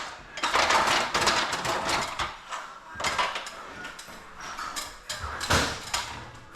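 Knocks and scraping of garage door parts and tools being handled during installation, with sharper knocks at the start, about three seconds in and again near the end.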